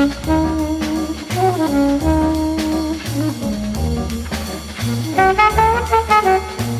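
Background jazz music: a brass melody of held notes over a walking bass line and a steady beat.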